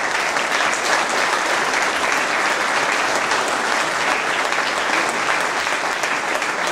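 Audience applause: dense, steady clapping of many hands.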